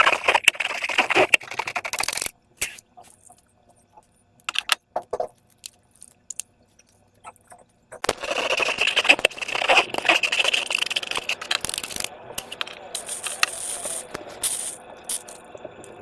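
Slime being squished and stretched by hand, making dense sticky crackling and clicking in two long bursts, with only scattered clicks in the quiet spell between them.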